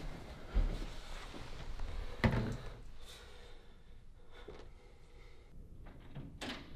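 A few knocks and thumps of things being handled in a small bathroom: a dull thud about half a second in, a louder sharp knock a little after two seconds, and a click near the end.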